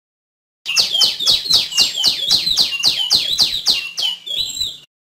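Female tiểu my songbird calling: a fast run of about a dozen sharp, falling notes, roughly three a second, then a few shorter, different notes near the end. The calling starts and stops abruptly.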